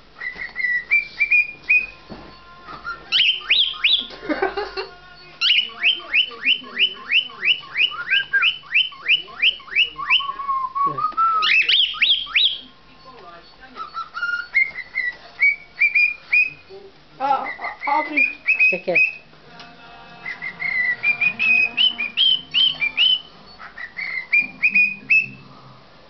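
Cockatiel whistling an imitation of a car alarm. Phrases of repeated sharp chirps, including a fast run of about five a second, alternate with runs of notes stepping upward and a rising glide, with short pauses between phrases.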